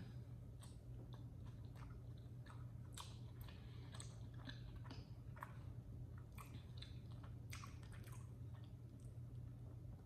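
A person chewing a mouthful of chili cheese dog close to the microphone: faint, irregular mouth clicks and smacks, many short ones throughout.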